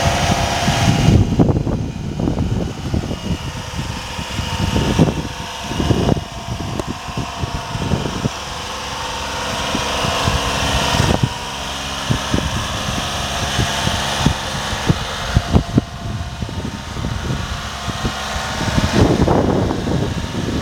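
Honda Acty kei truck's small engine idling steadily, with wind rumbling on the microphone.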